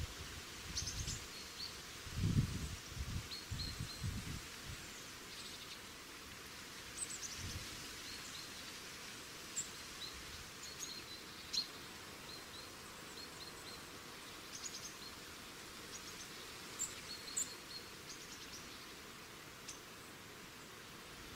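Forest ambience: a steady hiss of background noise with many short, high bird chirps scattered throughout, and a few soft low thumps and rustles in the first few seconds.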